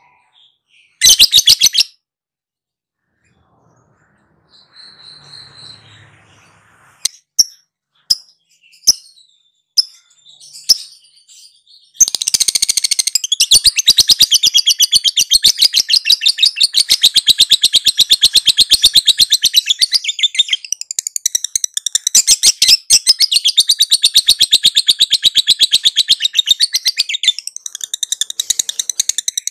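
A lovebird gives a brief loud burst and a few short calls, then about twelve seconds in breaks into ngekek panjang: a long, very fast, chattering trill of high repeated notes that goes on unbroken for more than fifteen seconds.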